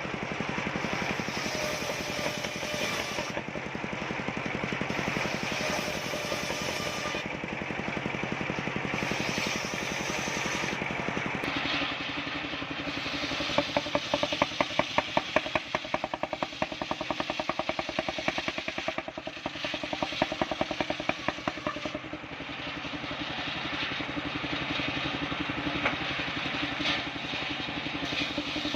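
Engine-driven mobile circular sawmill running steadily while ripping waru wood into roof battens. About twelve seconds in it changes to a fast, even rattle that lasts about ten seconds.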